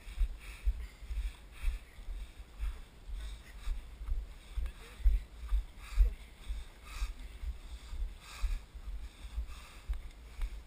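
Walking footsteps on a dirt trail jolting a body-worn action camera, giving low thuds about twice a second with a soft rustle of steps on dry grass and soil.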